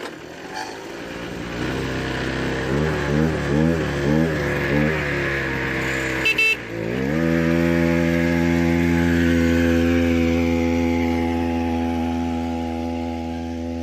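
Mini bike's small gasoline engine running: it idles, is revved up and down about four times, then climbs to a steady higher speed. A short horn beep sounds about six and a half seconds in.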